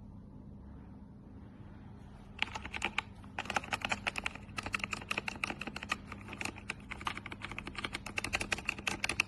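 Typing on a K68BT wireless mechanical keyboard with red linear switches. A fast, uneven run of key strokes starts about two and a half seconds in, over a faint steady hum.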